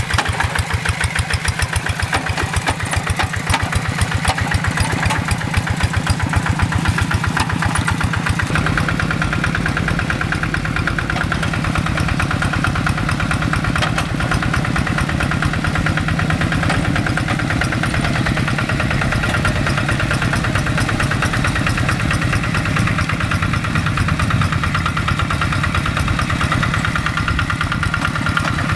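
Kubota single-cylinder diesel engine of a Quick two-wheel hand tractor running steadily under ploughing load, an even, fast chug. About eight seconds in its sound gets deeper and fuller.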